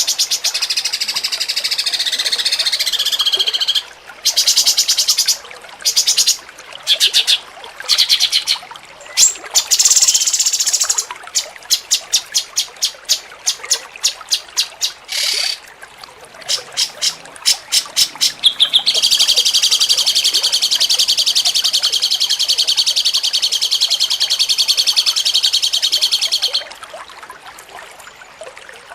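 A cucak cungkok songbird singing in rapid, high trills. A long trill opens, then comes a run of short stuttering bursts, then another unbroken trill of about seven seconds, which stops suddenly near the end.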